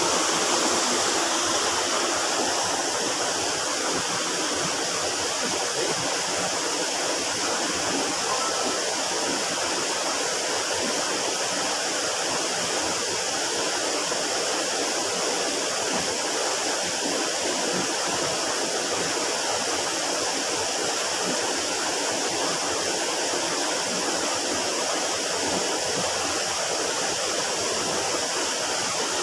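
Small river flowing, a steady even rush of running water.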